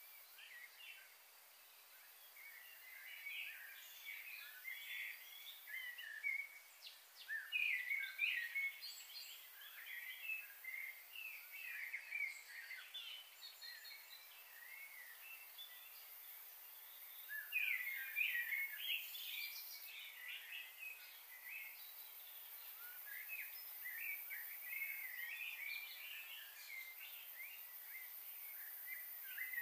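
Small birds chirping and chattering in bouts of many short calls, over a faint steady hiss.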